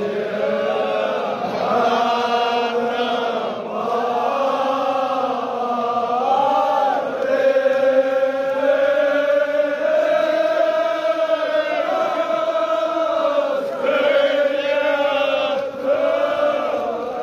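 A group of men chanting a Kashmiri marsiya, a Shia elegy of mourning, in long held lines that rise and fall slowly in pitch, with short breaths between phrases.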